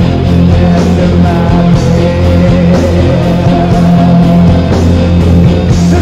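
Hard rock band on a cassette demo recording playing an instrumental stretch: guitars and bass holding steady low notes with a guitar line above.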